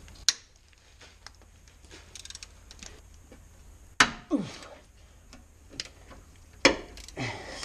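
Hand ratchet spanner working an alternator mounting bolt loose: scattered light ticks, with a few sharp metallic knocks, the loudest about four seconds in and near the end.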